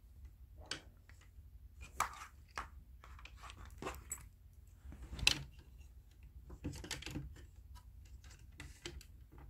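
Papillon puppy gnawing and tugging at an electric cable on a bedsheet: irregular small clicks and rustles, the sharpest about two seconds in and just past the middle.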